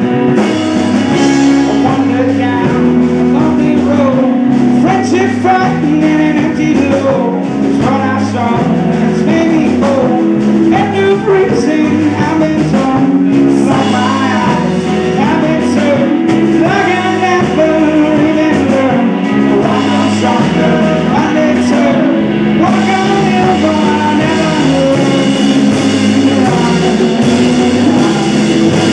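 Live rock band playing a song: strummed acoustic guitar, electric guitars and a drum kit, with a male lead vocal singing over them.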